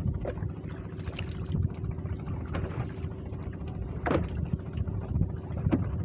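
Wind buffeting the microphone over small waves lapping against the hull of a small boat, with a faint steady hum underneath.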